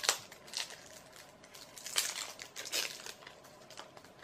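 Cellophane shrink-wrap on a sealed deck of playing cards crinkling as it is peeled off by hand, in about five short rustles, the loudest right at the start.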